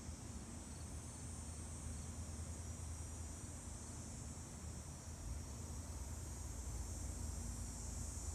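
Steady, high-pitched chorus of insects trilling without a break, with a low rumble underneath.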